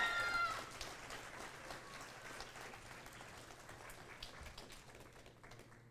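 Audience applauding after an award is announced, the clapping thinning out and dying away over the seconds, with a high cheer fading out in the first half second.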